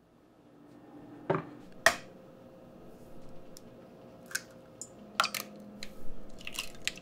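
Eggs cracked against a stainless steel mixing bowl: a series of sharp taps and shell crunches, the loudest about two seconds in and several more close together near the end.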